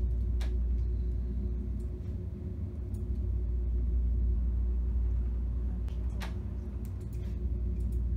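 Steady low rumble with a constant hum of room and machine noise, broken by a few sharp clicks, two of them about six seconds apart.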